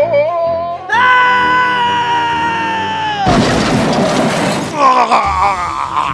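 Added sound effects: a long high whistle-like tone sinking slowly in pitch, cut off about three seconds in by a loud crash with shattering, followed by a wavering, voice-like tone.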